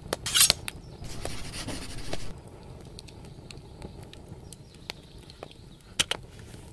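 End-card animation sound effects: a quick whoosh with a few sharp clicks, a second short rush of noise, then a faint bed of scattered crackles and ticks with one sharper click near the end.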